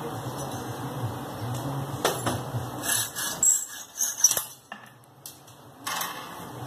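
Metal hand tools clinking against a steel bench vise: a hacksaw blade and pliers knock on the vise jaws and a small coil spring clamped in them. A low steady hum comes first, then a run of irregular sharp metallic clinks in the middle, and one more clatter near the end.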